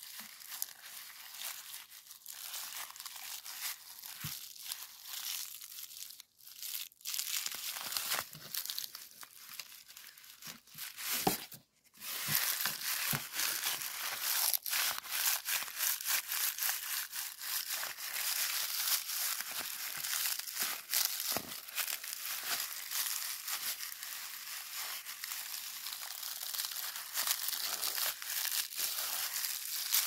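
A white cloth squeezed and rubbed by hand over a twisted-wire bottle brush, making a dense, scratchy crinkling full of small crackles. It drops out briefly about twelve seconds in, then carries on more steadily.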